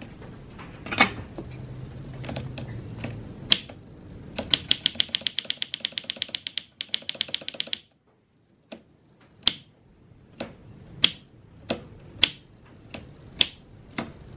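Keys of a freshly oiled 1950s Olympia Deluxe manual typewriter being struck. A few single clacks come first, then a fast even run of keystrokes, about eight or nine a second, for about three seconds. After a short pause come slow single strikes, a little under one a second.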